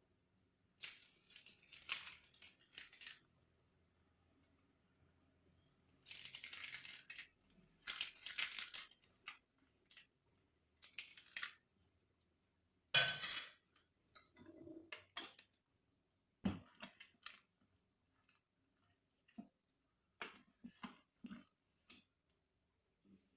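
Faint, scattered clinks, scrapes and short rattles of a cooking pot and kitchen utensils, with quiet gaps between them.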